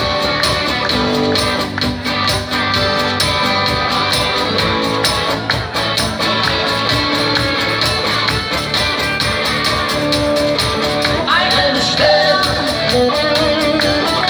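Live band music: electric guitar over a steady beat, with a woman singing in a smoky voice, heard most clearly in the last few seconds.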